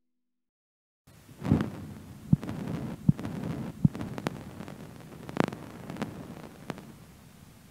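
Silence, then about a second in an experimental electronic track begins: a noisy hiss over a low hum, with four low thumps at an even pace followed by scattered sharp clicks.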